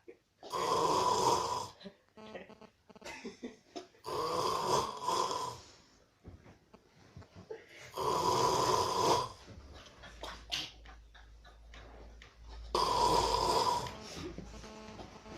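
Snoring: four loud snores about four seconds apart, each lasting a second or more, with quieter breathing sounds between them.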